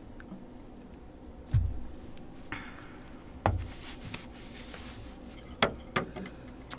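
Handling noise as wigs are pulled on over wig caps and adjusted: two dull thumps, brief rustling of hair, and a few sharp clicks near the end.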